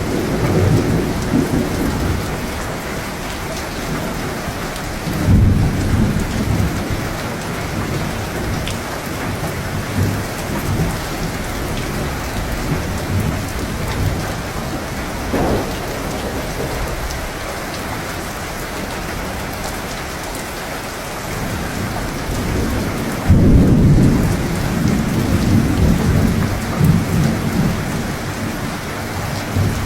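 Steady heavy rain with rolls of thunder: a rumble about five seconds in, a short one in the middle, and a longer, louder roll of thunder starting past the three-quarter mark.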